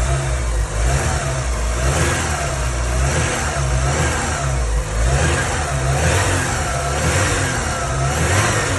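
Porsche 944 four-cylinder engine running and being blipped, its pitch rising and falling about once a second. With Liqui Moly Viscoplus oil additive just added, the owner hears the earlier ugly engine noise gone: 'ya se escucha bien'.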